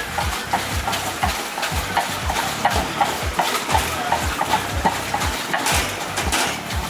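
Lassi being churned by hand: wooden churning sticks (madhani) spun back and forth between the palms in a steel pot, giving quick rhythmic knocks and swishes about three to four times a second.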